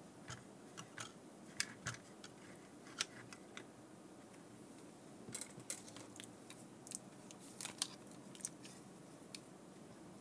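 Faint, irregular small clicks and ticks of fingers handling a thin coaxial antenna cable and pressing on a GPS circuit board's metal shield can, over a low room hiss.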